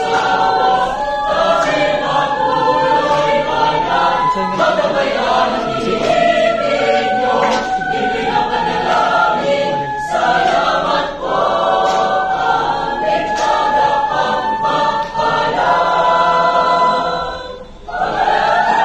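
Women's choir singing in harmony, with a brief break near the end before a last loud chord.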